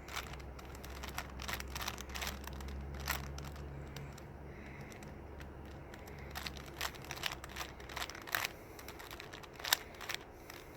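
Plastic Rubik's cube being turned quickly by hand, its layers clicking and clacking in irregular bursts.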